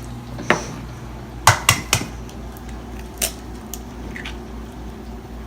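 An egg being tapped against the rim of a bowl to crack it: a few sharp knocks, three in quick succession about a second and a half in and another a little after three seconds.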